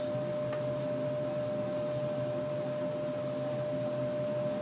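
Magnetic stirring plate running: a steady hum and hiss with a constant whine.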